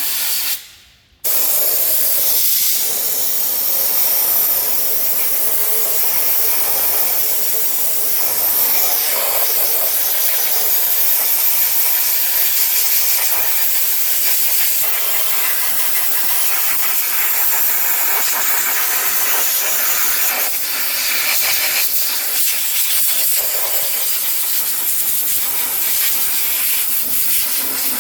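Steady spraying hiss from cleaning blackened engine parts, which stops for a moment about a second in and then runs on evenly.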